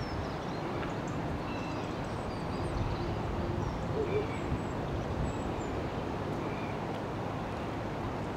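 Steady outdoor rushing noise with scattered short chirps from small birds, and a brief low hoot about four seconds in.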